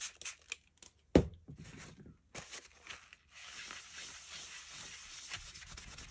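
A yellow plastic lid used as a paint palette being cleaned by hand: a few light clicks and one sharp knock about a second in, then steady rubbing as a cloth wipes the lid.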